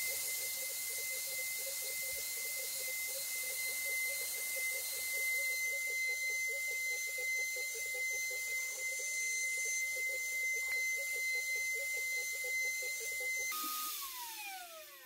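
CNC router's AMB rotary spindle motor running with a high steady whine and hiss while its cutter engraves lettering into a metal disc, with a fast pulsing undertone from the cut. Near the end the spindle switches off and spins down, its pitch falling away.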